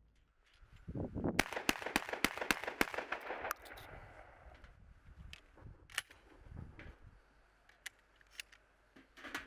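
Panzer Arms M4 12-gauge semi-automatic shotgun firing six quick shots over about two seconds. After that come scattered light clicks of shells being pushed into the tube magazine.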